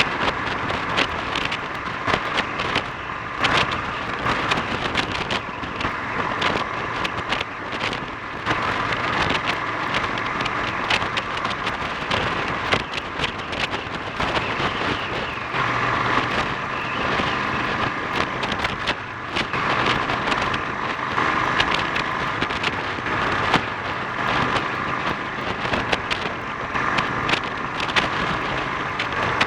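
Honda XL 350 single-cylinder four-stroke engine running while the motorcycle is ridden, with frequent short sharp crackles through the noise.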